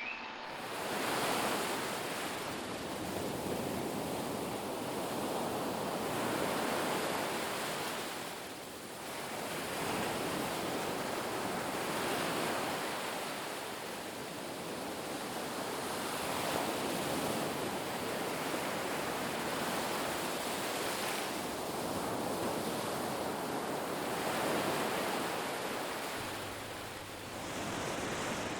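Ocean surf on a beach: a continuous rush of breaking waves that swells and eases in slow surges, with a lull about nine seconds in and another near the end.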